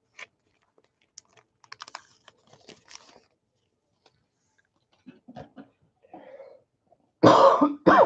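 Paper trading-card pack wrapper crinkling and tearing in the first few seconds, then a man coughing loudly near the end, a cough he puts down to pleurisy.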